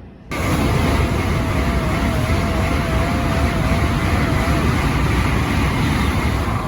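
Shinkansen bullet train passing through the station at speed: a loud rushing roar that comes on suddenly and holds steady, with a faint wavering whine in the middle.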